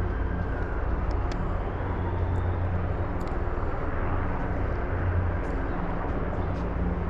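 Formation of military aircraft flying over, a steady low drone of engines.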